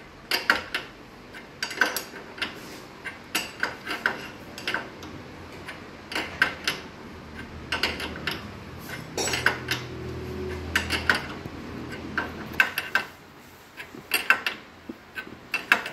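Metal tools clicking and clinking irregularly as a threaded bearing-race puller is turned and tightened with a spanner, pressing steering-head bearing races into a motorcycle frame's head tube.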